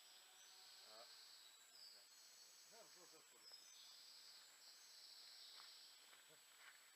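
Near silence: a faint high insect buzz, with faint distant voices about one and three seconds in.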